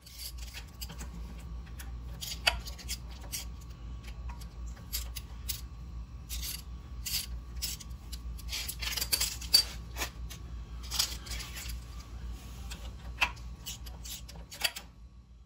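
Irregular metallic clicks, snicks and scraping from hand tools working on a truck's front axle and steering knuckle, over a faint steady low hum.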